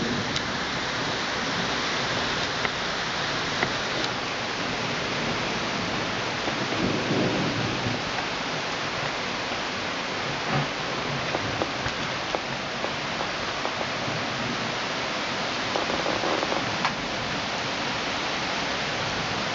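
Heavy rain pouring steadily in a thunderstorm, with scattered sharp ticks of drops striking nearby surfaces. Low rumbles of thunder come up about seven seconds in and again near the end.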